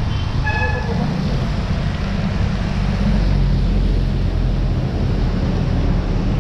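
Wind rumbling on the microphone while riding a bicycle in the rain, a steady low buffeting with a hiss of rain and road noise over it.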